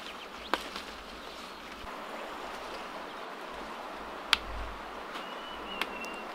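Outdoor rural ambience: a steady hiss-like background broken by three sharp clicks or snaps, with a thin, steady high whistle lasting about a second near the end.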